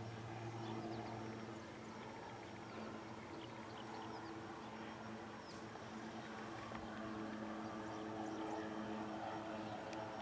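Agricultural spray biplane's piston engine and propeller droning steadily, growing a little louder in the second half as the plane approaches low over the field.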